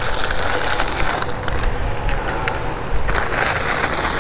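Gloved hand working tulip bulbs into loose potting soil in a plastic bucket, giving an irregular scratchy noise of soil being pressed and shifted.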